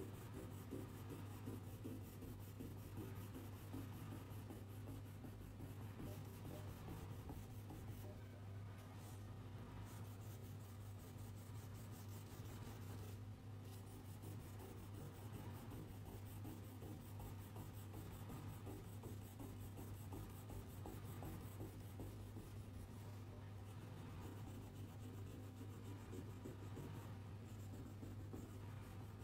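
A red coloured pencil scratching on paper in continuous back-and-forth shading strokes, over a steady low hum.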